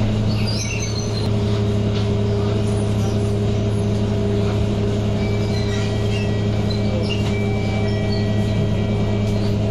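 Scania K230UB bus's five-cylinder diesel engine idling steadily with the bus standing still, heard from inside the passenger cabin as a low, even hum. A faint high steady tone comes in about halfway.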